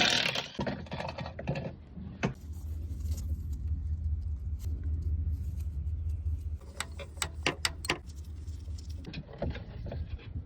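Metal tools and parts clinking and clattering in a series of sharp clicks, with a steady low hum for a few seconds in the middle.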